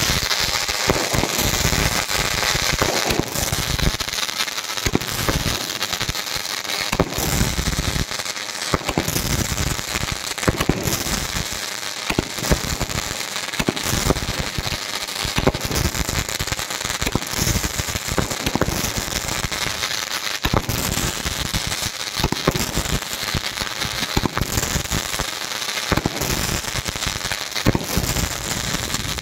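A Vanka 24-shot aerial firework cake from Meena Fireworks firing its shots one after another, a sharp bang every second or two, over continuous crackling from the sparkling trails and bursts.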